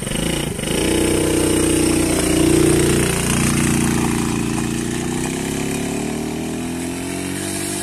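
A 50cc quad bike's small engine revving up as it pulls away, then running steadily as it rides off, its note slowly getting lower and quieter as it moves away.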